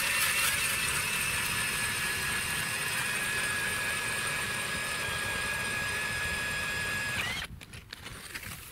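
Cordless drill driving an ice auger into the ice: a steady high whine for about seven seconds that sinks slightly in pitch as it goes, rises briefly, then cuts off.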